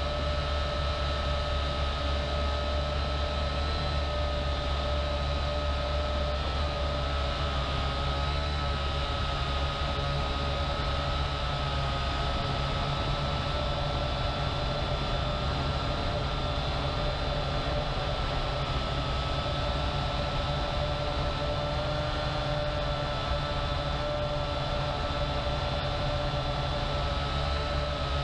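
Syma X8HG quadcopter's motors and propellers whining steadily in flight, heard from a camera mounted on the drone, with a steady low rumble underneath.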